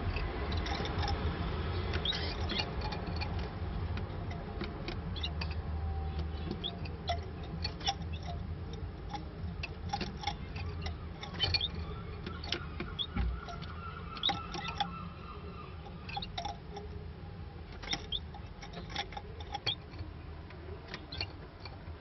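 Canaries in a wire cage: scattered short chips and clicks, with a held whistled note about halfway through, over a low steady hum.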